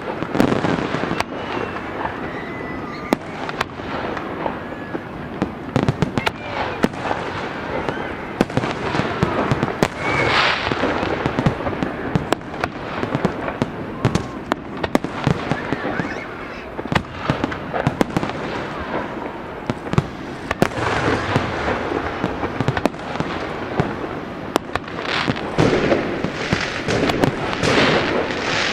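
A fireworks display: a continuous barrage of sharp bangs and crackling, with many shots overlapping and denser, louder bursts in the last few seconds.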